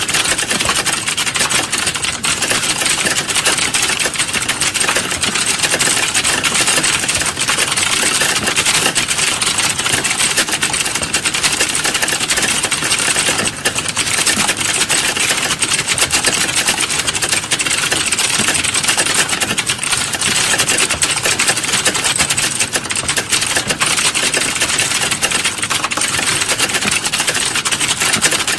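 Computer keyboard being typed on fast and without pause, a dense, steady stream of key clicks.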